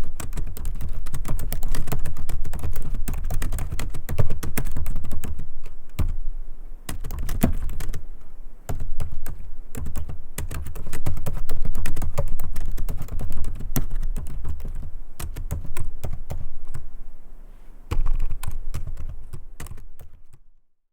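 Typing on a laptop keyboard: rapid key clicks in runs, with a few brief pauses, stopping shortly before the end.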